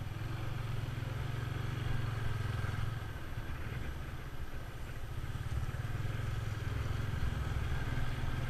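Motorcycle engine running while riding, a steady low drone that eases off a little around the middle and picks up again.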